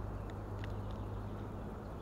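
A spinning reel being worked after a cast: a few faint light ticks over a steady low hum.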